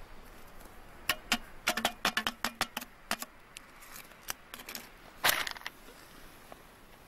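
A metal kettle being handled: a quick run of light clinks and clicks, then a short rustling scrape about five seconds in.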